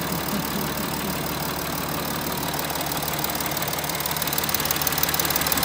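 Volkswagen Touareg 3.0 TDI V6 diesel idling with a fast, even knock from the top of the engine, growing louder toward the end. The uploader puts the knock down to worn camshafts that need replacing.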